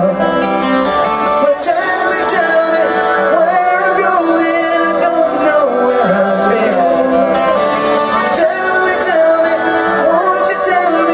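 Live rock concert music: a man singing over a strummed twelve-string acoustic guitar, loud and continuous.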